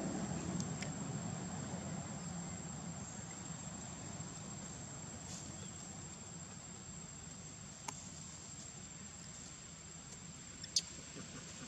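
Outdoor ambience of a steady high-pitched insect drone over a low rumble that fades during the first few seconds. A faint click comes about eight seconds in and a sharper one near the end.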